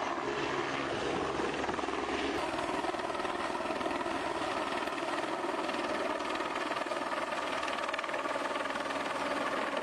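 Helicopter rotor and engine running steadily while the helicopter carries a sling load: a lineman hanging on a long line beneath it.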